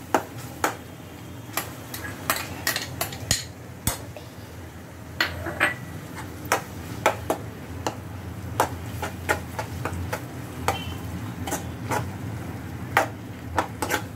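Spatula stirring chopped tomatoes and onions in a pan on a high flame, with repeated irregular clinks and scrapes against the pan over a faint steady frying sizzle.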